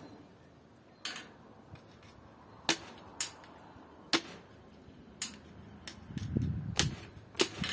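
Sharp, irregular knocks and clicks, about seven of them, from working a hanging lamb carcass with a small hatchet and a metal spit, with dull handling thuds about six seconds in.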